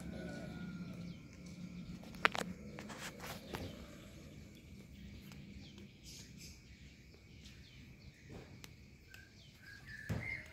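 Outdoor ambience with scattered short bird chirps, a sharp click about two seconds in, and a low steady hum that fades out around the middle.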